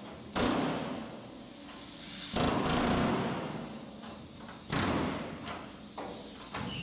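Pneumatic air chisel hammering in several bursts of about a second each, each starting abruptly, as it cuts the rusty rear quarter panel of a 1967 Shelby Mustang GT500 free from the body at a seam.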